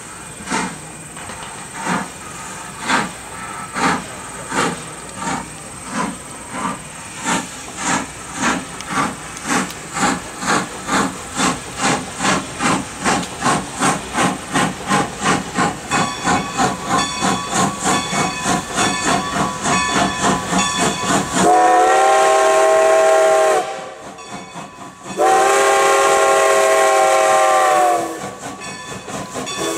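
Great Western 90, a 1924 Baldwin 2-10-0 steam locomotive, working toward the listener, its exhaust chuffs quickening from under one a second to about three a second as it picks up speed. About two-thirds of the way in, its steam whistle blows two long blasts and then a short one, the opening of the long-long-short-long grade-crossing signal.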